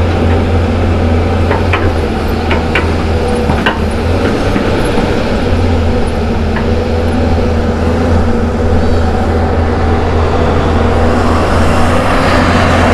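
Hyundai crawler excavator's diesel engine running steadily under load as it digs the trench, a constant deep hum. A few short knocks come between about one and four seconds in.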